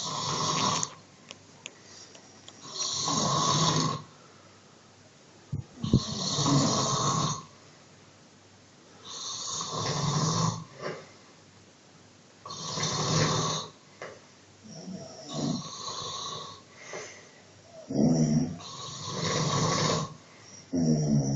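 A man snoring loudly in his sleep, one long snore about every three seconds with quiet breaths between.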